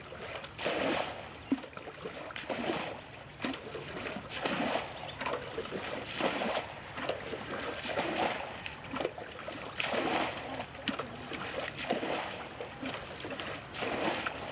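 Water being bailed from a shallow muddy pond with a metal pot: repeated scoops and pours, each pour splashing back into the water, every second or two.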